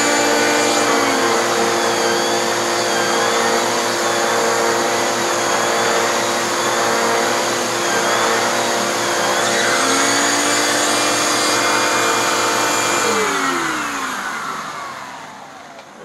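Bissell PowerForce upright vacuum running through its hose with its yellow air-driven turbo brush worked over carpet, a whine in the sound sweeping up and down twice. The turbo brush is keeping up on the carpet. About thirteen seconds in the vacuum is switched off and its motor winds down, the pitch falling away over two or three seconds.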